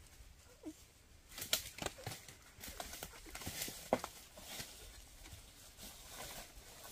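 Irregular rustling and crackling: scattered light clicks and scrapes, busier and louder from about a second and a half in.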